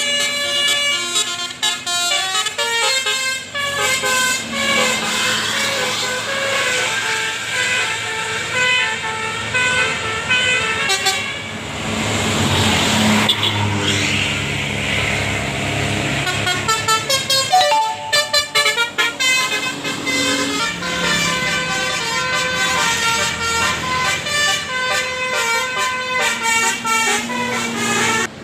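Tour-bus Basuri telolet horns, roof-mounted multi-trumpet melody horns, playing quick tunes of many short notes stepping up and down in pitch. About halfway through a bus goes by with a rush of engine and road noise before the horn tunes pick up again.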